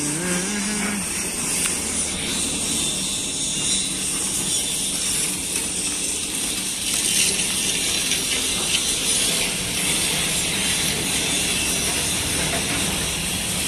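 Diesel truck engine idling with a steady mechanical rattle, amid street noise.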